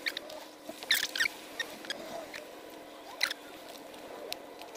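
Hands working damp compost and teasing apart the tangled roots of seedlings: a soft rustle with scattered crackles, the loudest a cluster about a second in and another just after three seconds.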